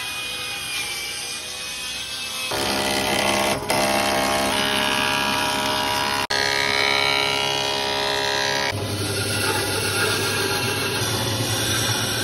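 Woodworking machines cutting a wooden board in three takes: a table saw ripping it, then a planer running with a steady hum as the board feeds through, then a band saw cutting. The sound changes abruptly about two and a half seconds in and again about nine seconds in.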